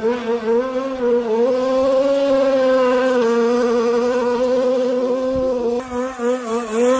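Toy-car engine sound effect: a loud, buzzy engine note holding a steady pitch with a slight wobble, dipping and wavering near the end.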